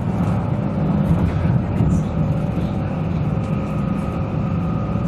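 Steady running noise of a DB class 646 (Stadler GTW) diesel multiple unit at speed, heard inside the passenger saloon: a low rumble of engine and wheels on rail, with a faint steady whine above it.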